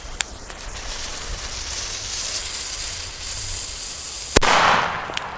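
A steady hiss, then about four seconds in a single sharp bang from a DumBum Black Edition firecracker (an F2 C-Böller), bright in sound.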